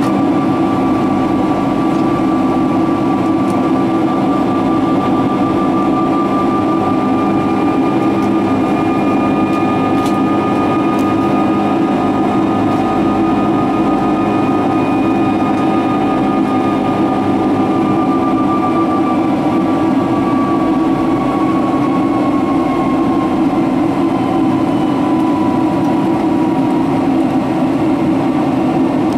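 Cabin noise of a Boeing 767-336ER in its climb, heard from a window seat beside its Rolls-Royce RB211 turbofan: a loud, steady roar and rush with a few held engine tones, one of which slowly sinks in pitch in the second half.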